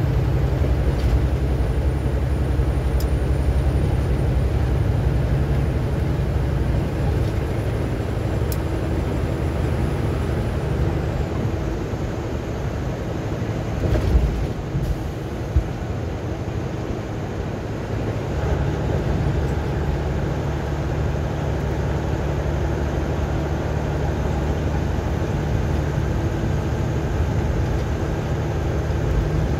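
Road and engine noise inside a vehicle's cabin while it drives at highway speed: a steady low rumble with tyre hiss, with two short thumps about halfway through.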